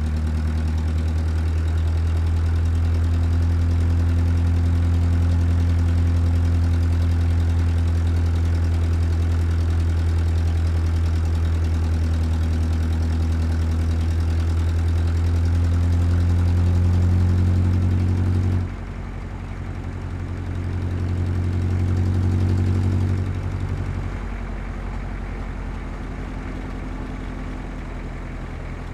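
Heavy truck engine running steadily. About two-thirds of the way through it drops sharply in level, swells again briefly for a few seconds, then settles lower.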